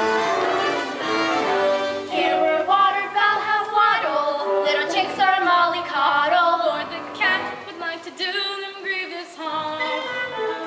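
Music: an instrumental break in a comic song, with a wavering melody line coming in about two seconds in.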